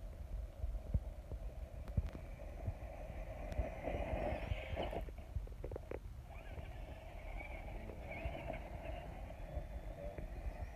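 Electric motor and gears of an RC rock crawler whining as it drives over rocky dirt, dropping out for about a second midway and then picking up again. Low wind rumble on the microphone underneath.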